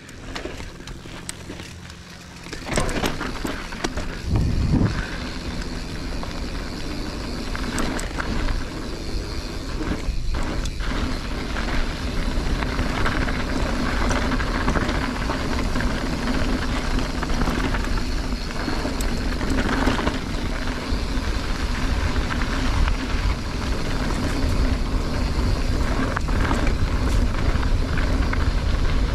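Mountain bike riding down a dry dirt trail: tyres running over loose dirt and gravel, scattered clicks and rattles from the bike, and wind rumbling on the camera microphone. It gets louder about three seconds in and stays at that level.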